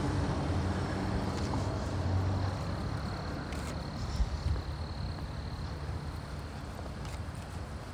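Wind rushing over the microphone and road rumble while riding a Veteran Sherman electric unicycle, with a faint steady high whine for a few seconds in the middle.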